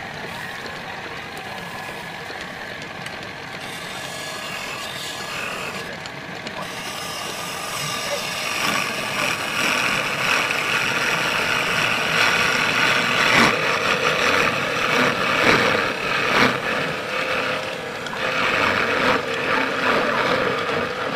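Wood lathe running, with a small wooden bowl spinning in its chuck while a hand is pressed against the turning wood to sand it. The scraping noise grows louder about eight seconds in and surges unevenly for several seconds.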